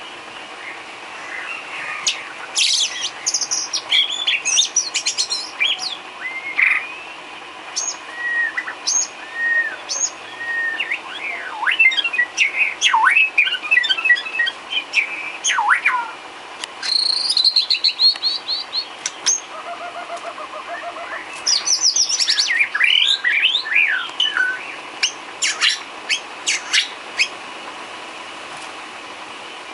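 White-rumped shama (murai batu) singing a varied song of clear whistles, sweeping notes and rapid trills, delivered in bursts with short pauses between phrases, over a faint steady hum.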